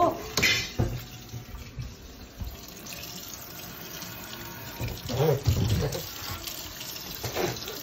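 A kitchen tap running into a stainless steel sink, a steady rush of water. There are a few knocks in the first second, and short voice sounds about five seconds in and again near the end.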